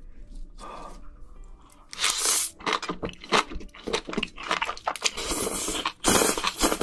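Close-miked eating sounds: wet chewing, crunching and slurping as spicy scallops and noodles are sucked off the shells, with two longer slurps about two seconds and six seconds in. Soft background music plays underneath.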